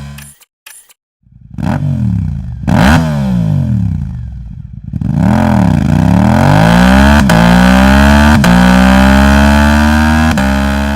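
Parallel-twin sport motorcycle exhaust revving: two quick rises and falls in pitch, then the engine pulls hard, climbing and holding high, with three sharp clicks during the climb.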